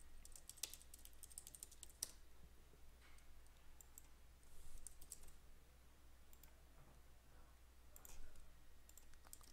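Faint typing on a computer keyboard: scattered key taps, in a quick run during the first two seconds, then sparser, with a few more near the end.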